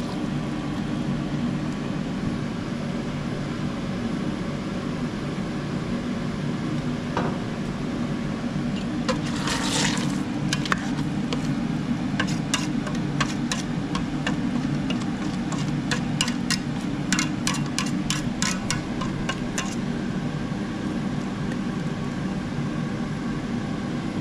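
Water poured from a cup into a stainless-steel electric pressure cooker pot of rice and vegetables. Then a metal ladle stirs, clinking and scraping against the pot's sides from about 9 to 20 seconds in, over a steady low rumble.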